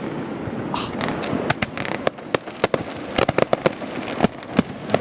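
Fireworks finale: shells bursting in quick succession, with many sharp bangs and crackles over a continuous rumble. A brief hiss comes about a second in, and the bangs come thickest past the middle.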